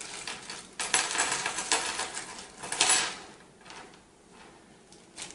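Graphics-card cooler parts (heatsinks, brackets and small hardware) being handled and set down on a table: rustling and clinking, busiest in the first three seconds, then quieter.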